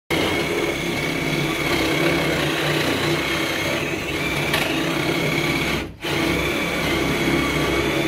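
Cordless drill running steadily as it drills into concrete formwork, dropping out briefly about six seconds in and then starting again.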